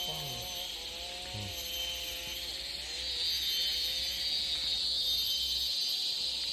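Cicadas droning steadily in the forest, a high-pitched buzz that swells louder about three seconds in.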